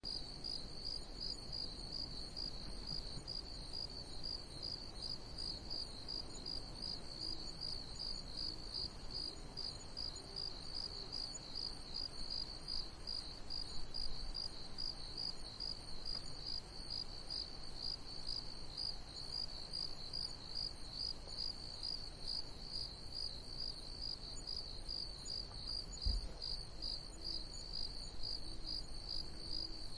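Crickets chirping steadily in a continuous high-pitched pulsing chorus, about two to three chirps a second, over a faint low background rumble.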